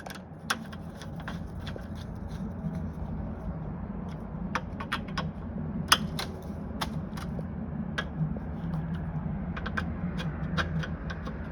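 Irregular small clicks and taps of a screwdriver and metal lock parts as the screen door lock's bolt screws are tightened, over a steady low hum.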